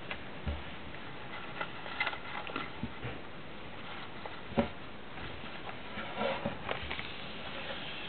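Paper rustling and crinkling in irregular short bursts as a folded paper origami bird is handled, unfolded and creased, with a few soft taps on the table, over a steady hiss.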